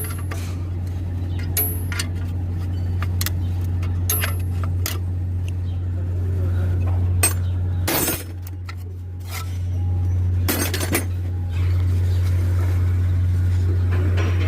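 Metal tools clinking and knocking against metal parts in short, sharp clinks, over a steady low hum. Around the middle there are two louder, harsher noises.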